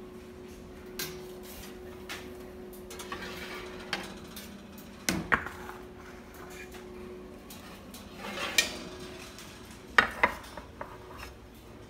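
Metal muffin tin clanking and scraping as it is handled against the oven rack and counter: a series of sharp knocks, the loudest about five and ten seconds in. A steady hum runs underneath and stops about seven seconds in.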